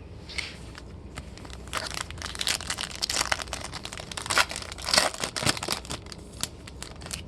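Crinkling and tearing of a Topps Chrome trading-card pack's foil wrapper as it is torn open, with dense crackles and short clicks, busiest from about two to five seconds in.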